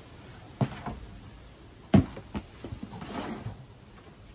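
Knocks and thuds as a flexible plastic tub is carried into a wooden chicken run and set down. The loudest knock comes about two seconds in, followed by a brief rustle.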